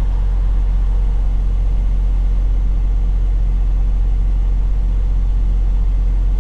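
Freightliner Cascadia semi-truck heard from inside the cab while driving: a steady, low engine and road drone.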